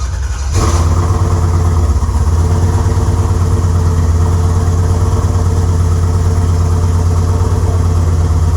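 GM 6.2-litre LS V8 crate engine with a stage 3 Elgin cam, just started on a trial tune meant to smooth its running: it picks up sharply about half a second in, then settles into a loud, steady idle.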